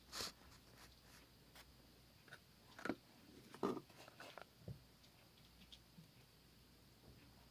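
Slime being handled: a few short, faint squishes and clicks, the loudest about three and a half seconds in, with near silence between them.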